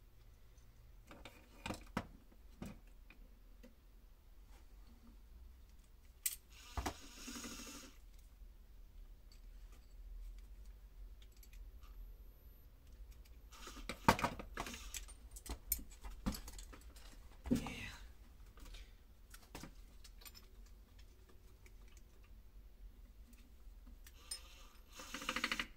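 Faint clicks, taps and light metallic jingles of small tools and parts being handled, with a few short scraping or rustling bursts, the loudest about 14 s in and near the end. A steady low hum runs underneath.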